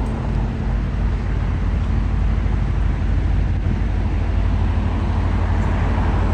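Steady low engine-like rumble over a constant wash of outdoor background noise, with no distinct events.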